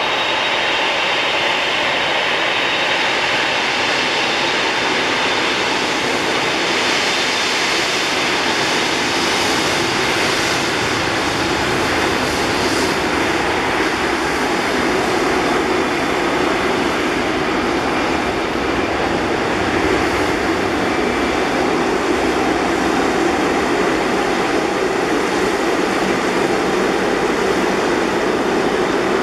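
Boeing 747 jet engines running at low taxi power: a steady, unbroken jet noise.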